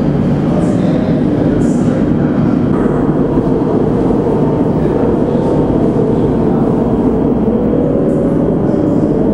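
A steady, loud mechanical rumble with a few brief, faint high squeaks.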